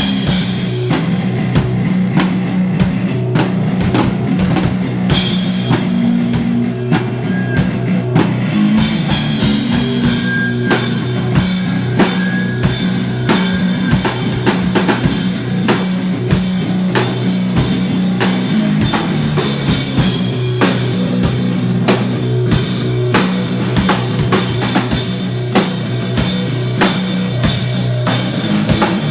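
Live rock band playing loud: a drum kit with bass drum hits over sustained guitar and bass, getting brighter in the highs about nine seconds in.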